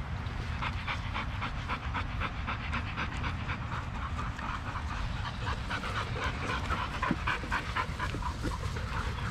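A dog panting hard close by, quick rhythmic breaths at about four or five a second.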